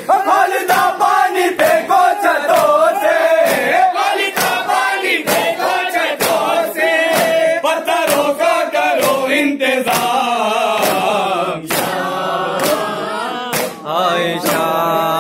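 A crowd of men chanting a noha lament together, with sharp, evenly spaced strikes of matam (hands beating on chests) keeping the rhythm a little faster than one per second.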